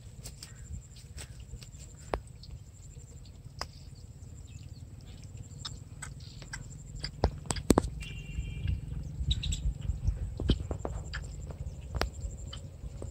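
Handling noise as a small freshly caught rohu is unhooked by hand in long grass: scattered clicks and rustles over a low wind rumble on the microphone, loudest around the middle, with a short high chirp about eight seconds in.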